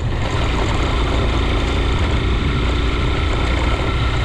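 A vehicle's engine running steadily with road noise while driving. A low hum is the loudest part, under an even rushing haze.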